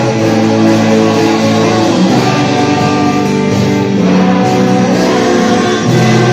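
Instrumental band music led by guitar, with held chords ringing throughout.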